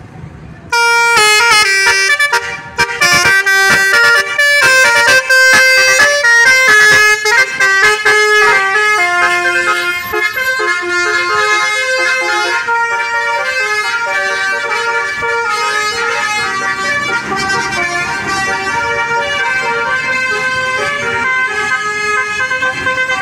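Multi-tone musical bus horn, an Indonesian 'telolet' horn, playing a quick melody of changing notes. It starts suddenly about a second in and is loudest in the first half.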